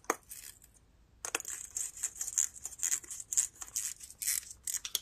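Ratcheting wrench clicking in quick runs as the float bowl nut on a small-engine carburetor is tightened, starting about a second in.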